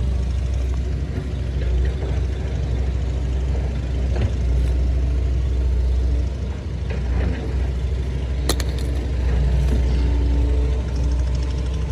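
Heavy machinery engine running steadily, with a sharp metallic knock about eight and a half seconds in.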